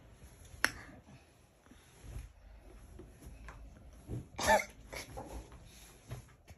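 Duvet and bedding rustling as a bed is made, with a few soft thumps and a sharp click just under a second in. About four and a half seconds in, a person gives a short cough, the loudest sound.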